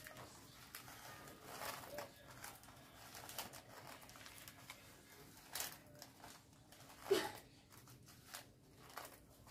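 Faint scraping and rustling as a plastic scraper scoops loose chocolate shavings off the table and presses them onto a cream-covered cake, with two sharper knocks about five and a half and seven seconds in.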